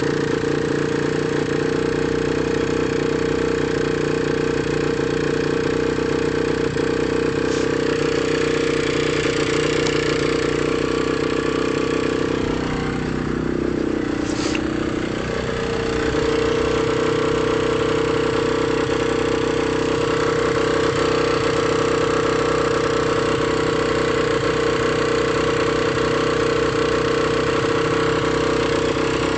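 Minarelli AM6 50cc two-stroke engine running steadily. About halfway through, its speed sags for a couple of seconds, then picks back up.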